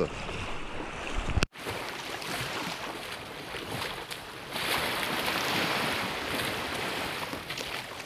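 Shallow sea water washing at the shoreline, with feet splashing and kicking through the small waves; the splashing is louder in the middle stretch. The sound cuts out abruptly for a moment about a second and a half in.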